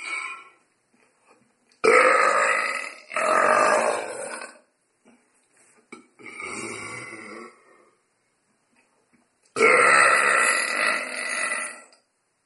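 A person belching deliberately, long and loud: two long burps back to back about two seconds in, a softer one around six seconds, and another long one near the end.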